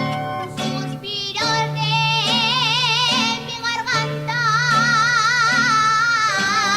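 A female voice singing a jota in full voice, holding long high notes with a wide vibrato, over plucked-string accompaniment. The strings play alone at first and the voice comes in about a second and a half in.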